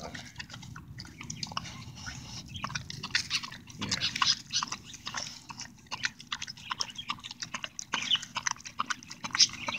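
A large dog eating wet leftovers in gravy from a metal bowl: rapid, irregular wet chewing and smacking.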